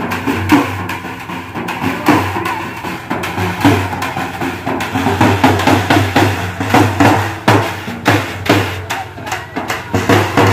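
Several dappu frame drums beaten with sticks in a fast, driving rhythm, stroke after stroke without a break.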